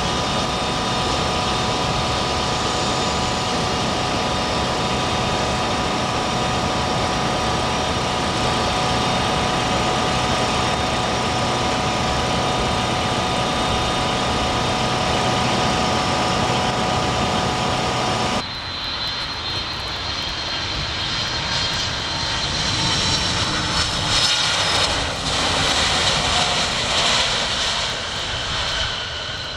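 Jet airliner engines running steadily with several high whining tones, which cut off abruptly about two-thirds of the way through. An Airbus A300 jet airliner then takes over on the runway just after touchdown, its jet noise with a high whine swelling louder near the end.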